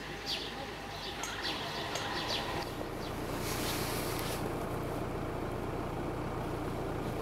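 Birds calling in short, high chirps that fall in pitch, repeated for about the first two and a half seconds. Then a steady low rumble with hiss takes over, with a brief swell of hiss a little later.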